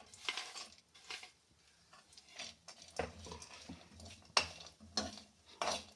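A metal utensil clinking and scraping against a kadhai in several separate knocks, as coconut pieces are put in and stirred in hot ghee.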